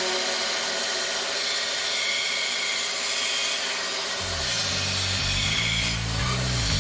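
Steel knife blade ground against the abrasive belt of a G-15 knife grinder: a steady rasping hiss of metal on the running belt.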